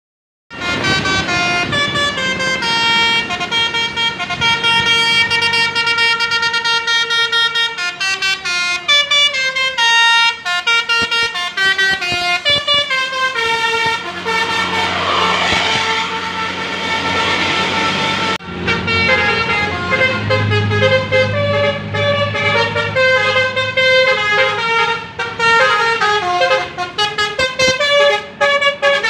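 Basuri 'telolet' multi-tone bus horn playing quick melodic tunes, the notes stepping up and down in rapid sequences. Midway a rush of noise joins in for a few seconds, and a low engine hum sits under the later tunes.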